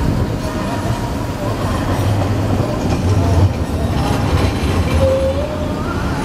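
Hakodate city tram running along street track, a steady low rumble of its wheels and motors on the rails.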